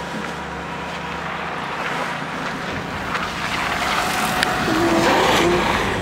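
A car passing on a slush-covered street, its tyre and engine noise swelling to a peak about five seconds in and then easing off.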